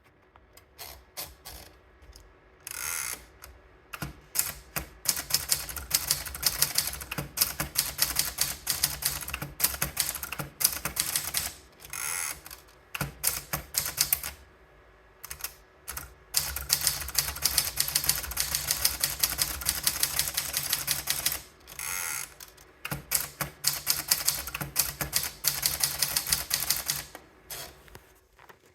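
Contessa De Luxe manual typewriter being typed on: rapid runs of sharp key strikes with short pauses. About every ten seconds a brief sliding rasp sounds as the carriage is returned.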